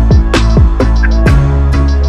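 Background music with a steady beat: deep kick drums that drop in pitch, sharp percussion hits a few times a second, and a held bass note underneath.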